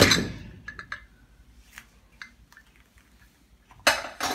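Stainless-steel pressure cooker lid being twisted open and lifted off the pot: a loud metallic clunk as it comes free, then light rattles, and a few metal clanks near the end.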